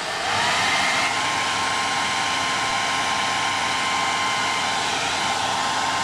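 Handheld hairdryer on high heat, blowing steadily with a constant whine. The whine rises as the motor comes up to speed in the first half second, then holds.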